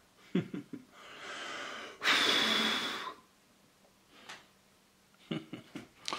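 A person breathing close to the microphone: a softer breath, then a louder, longer one lasting about a second, with a few brief voice sounds at the start and end.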